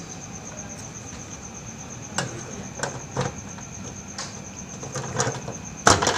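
Scattered clinks and knocks of utensils against bowls and the metal fittings of a bakso soup cart, about six in all, the loudest near the end. Under them a cricket chirps in a steady, rapid pulse.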